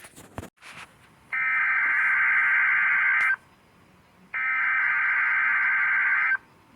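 NOAA Weather Radio SAME header for a required weekly test: two bursts of digital data tones, each about two seconds long, a second apart.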